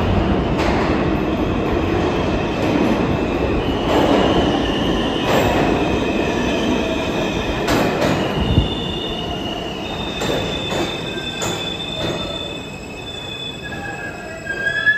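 R160 subway train arriving on the station track and braking: a steady rumble with a series of sharp clacks as the wheels cross rail joints, and high-pitched wheel and brake squealing from about four seconds in. It quietens as the train slows, with a sharp clunk near the end as it comes to a stop.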